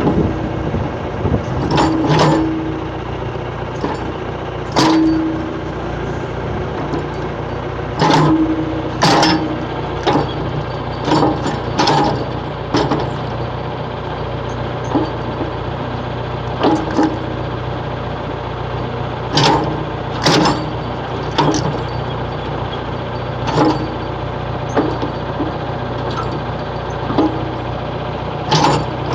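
Backhoe diesel engine running steadily while its bucket works against a hard drive, giving irregular sharp clunks and metal knocks, some with a brief ringing, as the drive is crushed.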